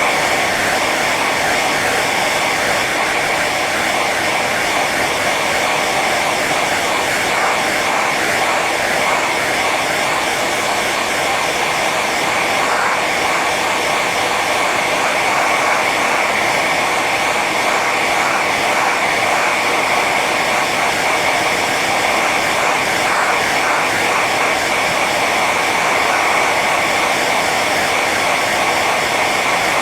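Hair dryer running steadily on its high setting: a constant rush of blown air with a fan whine.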